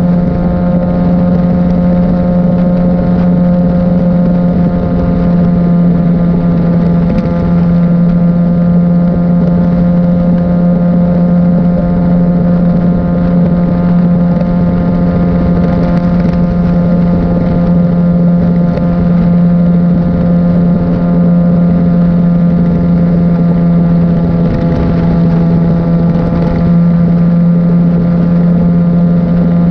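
Literbike (1000 cc sport bike) engine cruising at a steady speed, its note held at nearly constant revs throughout.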